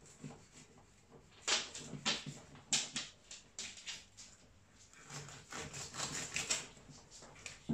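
Knife cutting and scraping brined herring on newspaper, with the paper rustling under the hands: a string of short, irregular scrapes and rustles.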